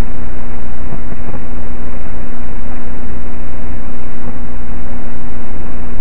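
Loud, steady electronic static hiss with a constant low hum and a steady tone running through it, unchanging throughout.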